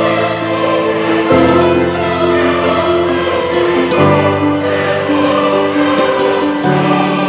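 Background music: sung voices holding sustained chords that change every two to three seconds.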